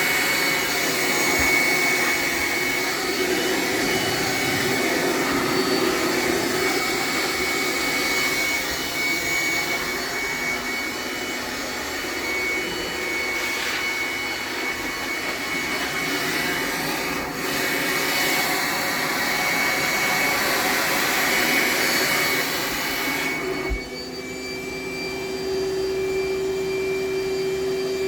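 Steady motor-like whirring noise with a constant high whine. About 24 seconds in it drops in level after a small thump, and a lower steady hum stands out.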